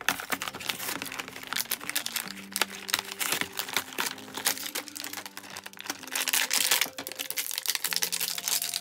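Plastic blister packaging crinkling and crackling and cardboard backing tearing as an action-figure package is opened by hand, with quiet background music underneath.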